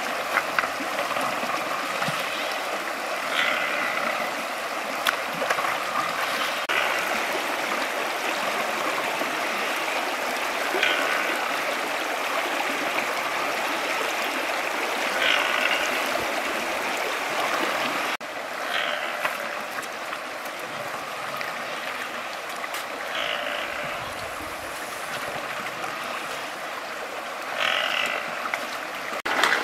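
Shallow river water running steadily over stones. Short, brighter sounds recur every few seconds above it.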